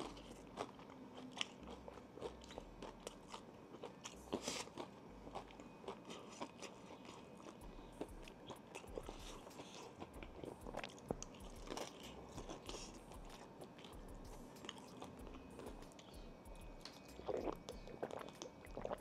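Close-miked crunching and chewing of a breaded fried chicken tender, with many small irregular crisp crackles. Near the end, gulps of drinking from a plastic water bottle.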